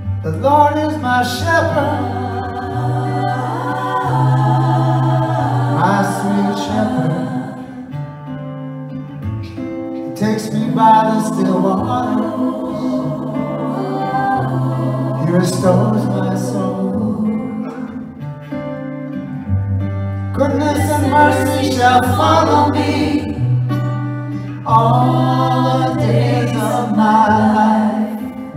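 Several women's voices and a man's voice singing together in harmony over acoustic guitar, a slow song with a low note held under each phrase.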